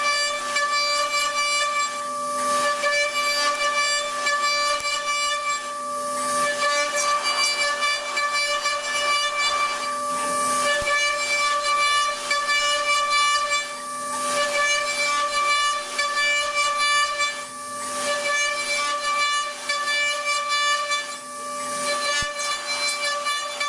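A machine running with a steady high-pitched whine and hiss, easing off briefly every few seconds in a repeating cycle.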